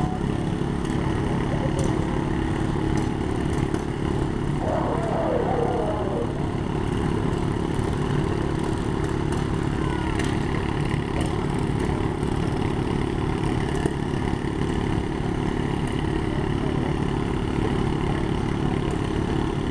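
Riding lawn mower engines running hard, a loud steady engine din without letup.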